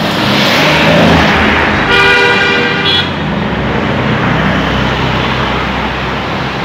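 Cars driving past in street traffic, their engine and tyre noise swelling in the first second or so. A car horn sounds once for about a second around two seconds in, and then steady engine noise carries on as traffic moves.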